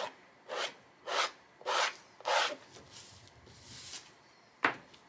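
Omelet spatula scraping wet acrylic paint across a canvas in five quick strokes about half a second apart, then a softer, longer scrape, and one sharp knock near the end.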